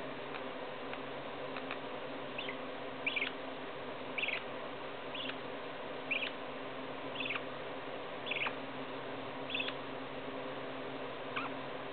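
Lineolated parakeet giving a series of short, high chirps, about one a second, over a steady background hum.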